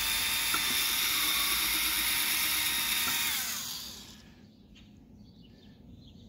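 Black+Decker cordless drill running at steady speed as it bores a small pilot hole through the plastic wall of a milk crate, then releasing the trigger and spinning down with a falling whine about three and a half seconds in.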